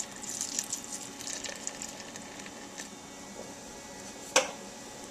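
Beer poured from a can into a pot of chili, fizzing and crackling as it foams up, busiest in the first couple of seconds and then thinning out. A single sharp knock about four seconds in.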